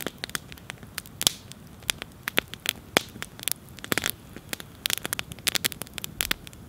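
Wood campfire crackling, with sharp, irregular pops several times a second over a low, steady hiss.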